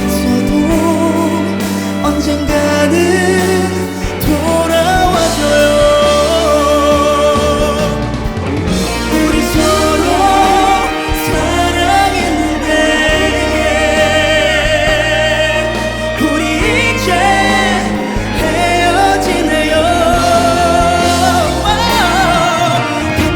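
Male vocalist singing a Korean ballad with vibrato over full instrumental accompaniment.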